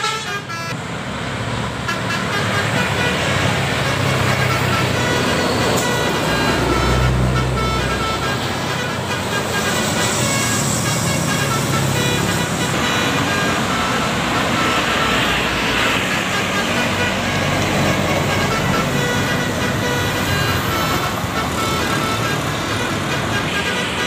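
Telolet 'basuri' musical bus horn playing a tune of quickly changing notes, over the rumble of passing vehicles and traffic.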